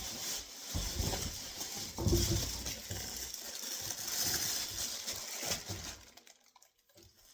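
Handling noise as the new oven bake element is brought out and shown: rustling with a few light knocks and clinks. It dies down to near quiet about six seconds in.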